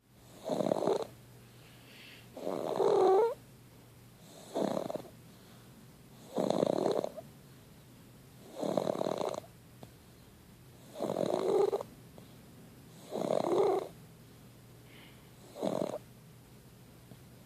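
Snoring: eight snores in a slow, even rhythm, one about every two seconds, each lasting under a second.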